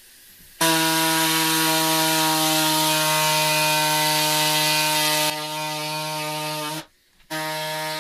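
Hand-held power cutter running steadily with a noisy, even buzz and hiss as it cuts a plastic dash bezel. It starts about half a second in, gets a little quieter around five seconds, cuts out briefly near seven seconds and starts again.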